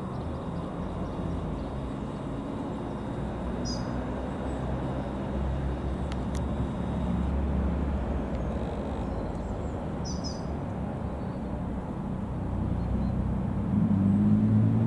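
A distant engine drones steadily and grows louder near the end, as if drawing closer. Brief bird chirps come about four and ten seconds in.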